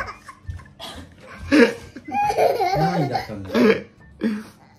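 A man and a young girl laughing together in a string of short bursts.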